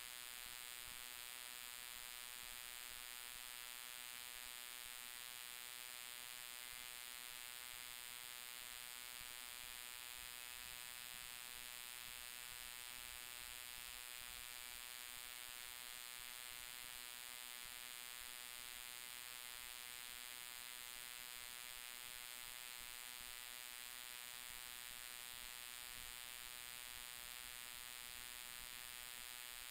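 1955 Cessna 180's piston engine and propeller running steadily, a faint, even hum with no change in pitch or level.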